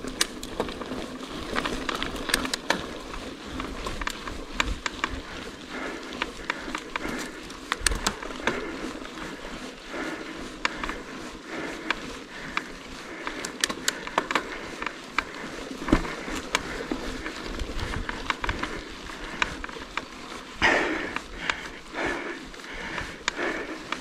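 Rockrider AM 100S mountain bike riding over a rough forest trail: tyres rolling on dirt and stones, with irregular clicks, rattles and knocks from the bike, and a louder stretch near the end.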